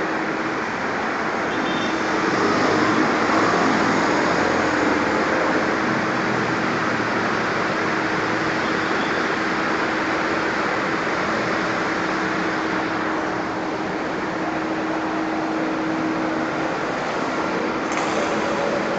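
Busy road traffic of cars and motorcycles passing below: a steady wash of engine and tyre noise with a thin hum underneath, swelling for a few seconds near the start as vehicles pass close.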